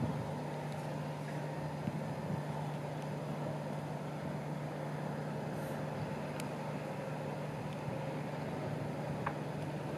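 Steady, distant engine hum, a low even drone with no change in pace.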